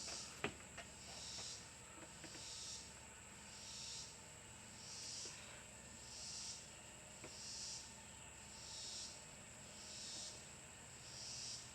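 Faint insect chorus, its high buzzing trill swelling and fading in an even rhythm about once every second and a quarter, with a couple of light clicks near the start.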